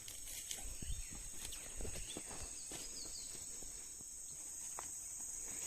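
Steady high-pitched insect drone, with scattered light clicks and rustles.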